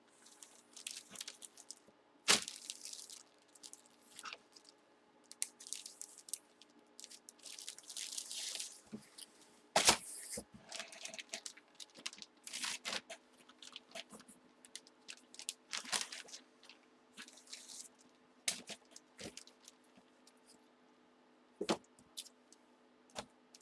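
Plastic packaging and a cardboard box being handled and torn open: irregular crinkling and rustling with a few sharp knocks, the loudest about two seconds and ten seconds in.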